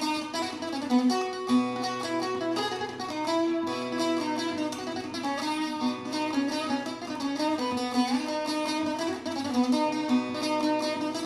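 Instrumental music led by a plucked string instrument picking a quick, busy melody over held notes.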